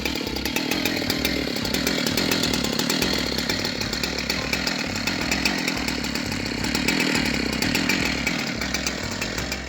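Chainsaw running steadily as it rips lengthwise along a log, guided by a homemade Alaskan sawmill jig.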